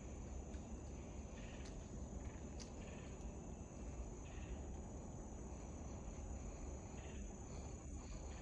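Woodland insects calling: a continuous high-pitched trill with softer, lower calls coming and going about once a second, over a steady low rumble.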